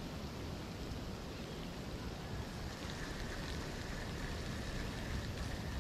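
Steady wind noise rumbling on the microphone outdoors, an even hiss with no distinct events.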